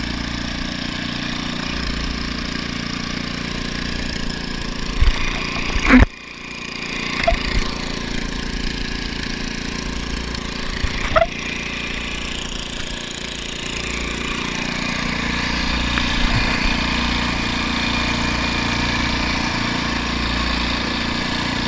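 Small boat engine running steadily, with a couple of brief knocks about six and eleven seconds in.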